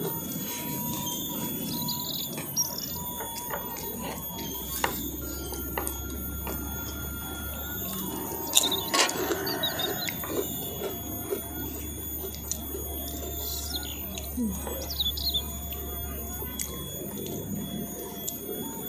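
Mukbang eating sounds: metal spoons clinking and scraping on a metal tray of ketoprak, with chewing, and a burst of louder clatter about nine seconds in. Birds chirp faintly in the background.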